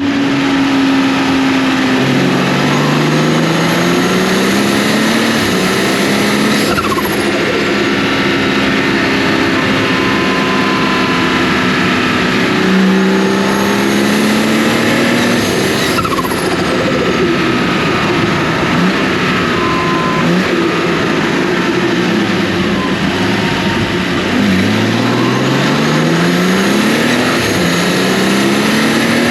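BMW N55 turbocharged straight-six accelerating hard several times, its note climbing and dropping between gears. A high whistle sweeps down in pitch a few times, each as the throttle closes: the turbo spooling down and the plumb-back blow-off valve venting, the sound the owner calls weird.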